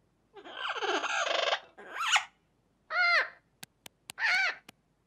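A macaw gives a long, harsh squawk about half a second in. Several shorter rising-and-falling calls follow, with a few sharp clicks near the end.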